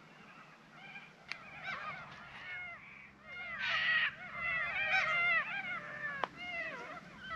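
A group of birds calling over one another, many short calls that rise and fall in pitch, getting louder about halfway through. Two sharp clicks, one about a second in and one near the end.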